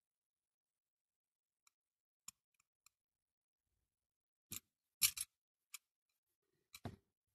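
Scattered sharp clicks and taps of small diecast toy car parts and tools being handled during reassembly, with a quick double tap about five seconds in the loudest and another near the end.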